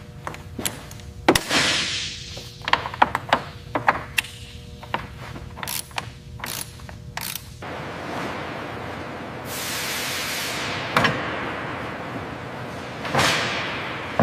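Ratchet-like mechanical clicks and metal clanks in quick, uneven succession over a steady hum, then a steady rushing noise with a brief hiss, a single knock and a falling whoosh near the end: workshop tool and mechanism sounds as landing gear is taken off.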